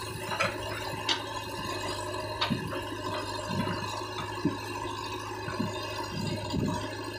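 JCB 3DX backhoe loader's diesel engine running steadily while the backhoe bucket digs into stony ground. Scattered knocks and scrapes of rock against the bucket, a few sharper ones in the first few seconds.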